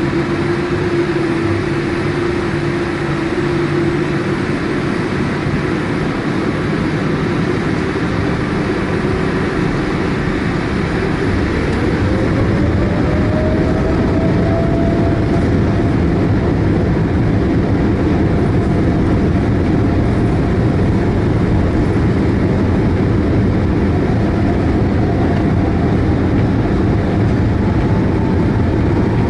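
Boeing 787-8 jet engines running steadily, then spooling up about twelve seconds in: a whine rises in pitch and the overall noise grows louder and holds, as thrust comes up for the takeoff roll.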